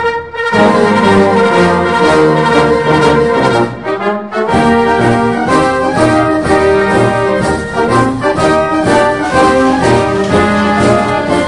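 Instrumental music led by brass instruments, playing a continuous melody with chords.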